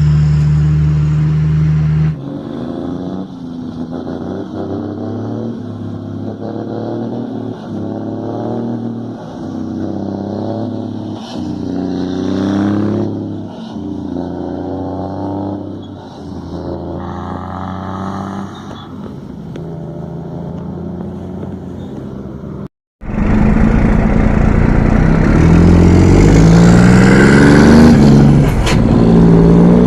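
Scania truck engines rumbling through their exhausts in several clips. A loud steady note for about two seconds, then a quieter stretch where the engine revs up again and again, and after a brief dropout about three quarters through, a loud run of rising revs.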